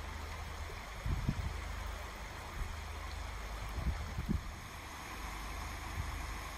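River water rushing steadily, with a few short low thumps about a second in and again around four seconds.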